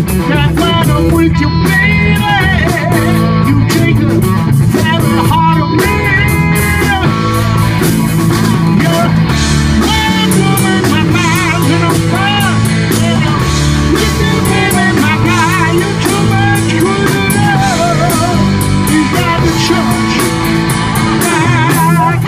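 Live rock band playing: electric guitars, bass guitar and drum kit, with a woman singing over them in a wavering vibrato.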